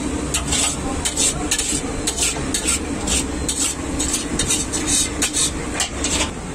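Poha being stirred and turned in a steel tray, a quick run of short scraping strokes about three a second over a steady low hum.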